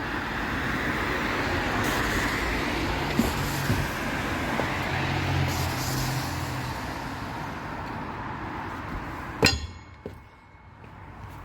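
A road vehicle goes past, a broad rushing sound that swells and slowly fades, with a low engine hum. Near the end comes a single sharp metallic clang with a short ring.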